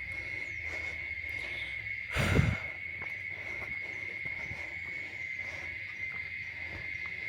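Insects in the forest, likely crickets or cicadas, giving a steady, high, single-pitched drone. About two seconds in comes a brief thump of noise.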